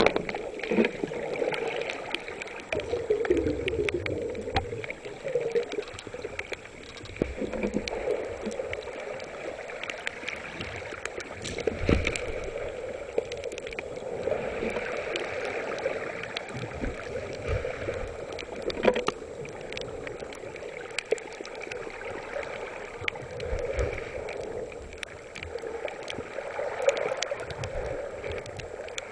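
Underwater sound through a camera's waterproof housing: steady rushing and gurgling water, with scattered small clicks and a couple of sharper knocks.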